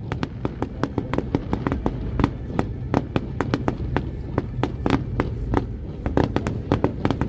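Fireworks display: a dense, irregular run of sharp bangs and crackles, several a second, over a low rumble.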